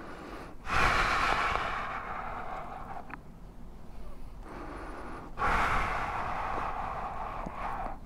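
Two long, breathy exhales close to the microphone: each starts suddenly and fades over about two and a half seconds, the first just after the start and the second about halfway through.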